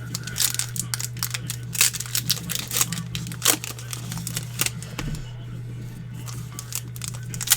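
Foil wrappers of trading-card packs crinkling and tearing as packs are ripped open and handled, a string of quick irregular crackles over a steady low hum.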